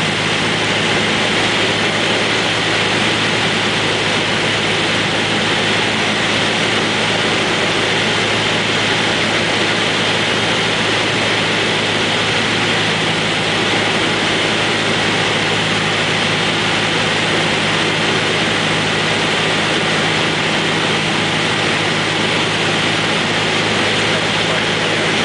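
Steady drone of a Cessna 172's piston engine and propeller heard inside the cabin in flight, a constant low hum under a loud rush of air noise.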